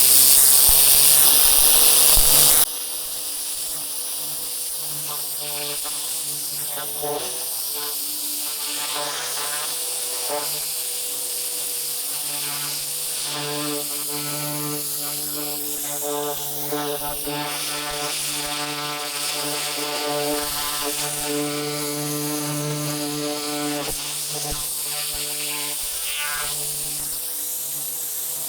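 Pressure washer spraying with a loud hiss that cuts off suddenly about two and a half seconds in. After that the machine keeps running with the trigger released, a steady buzzing hum with a few held tones.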